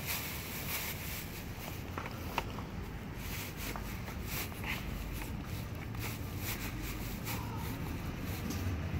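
Feet shifting in Nike Air More Uptempo sneakers stuffed with mashed banana, standing on plastic bags: faint, scattered squelches and plastic crinkles over a steady low background rumble.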